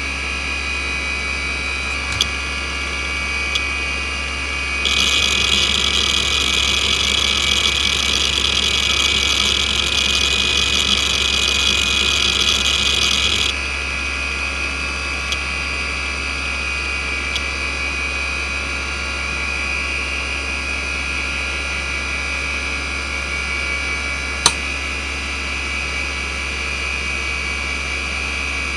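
NEC D3711 170 MB 3.5-inch IDE hard drive under a Speedsys benchmark, its 4,090 rpm spindle giving a steady whine throughout. About five seconds in, a dense buzzing rattle of rapid head seeks starts and stops abruptly after roughly nine seconds. Single seek clicks sound now and then, with one sharper click about three-quarters of the way through.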